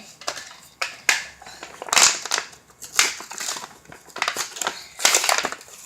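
Foil wrapper of a chocolate surprise egg crinkling and crackling in about six short bursts as a small child struggles to open it.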